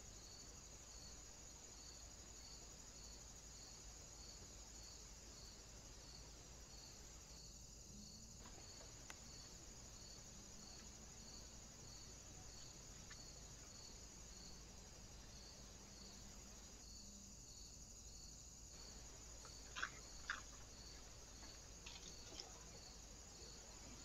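Near silence: a faint steady high-pitched hiss with a regular pulse about twice a second, and a few soft clicks near the end.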